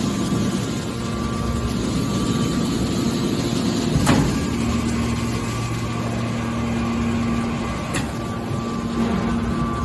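Hydraulic baling press running: a steady motor and pump hum with a held tone. A sharp knock comes about four seconds in and a lighter one near eight seconds.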